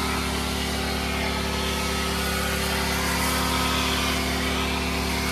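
Kawasaki KX85's two-stroke single-cylinder engine idling steadily, fresh from a top-end and reed rebuild.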